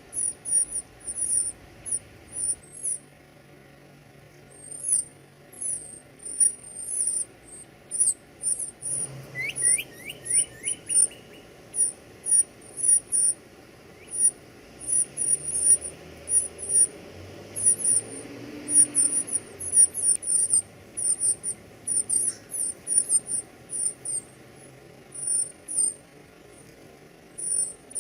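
Baby birds cheeping: many short, very high-pitched chirps in rapid, irregular runs, with a brief run of lower whistled notes about nine seconds in.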